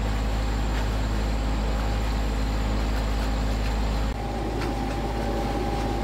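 Sailboat's auxiliary engine running steadily under way, a low drone with a faint higher hum; its tone shifts slightly about four seconds in.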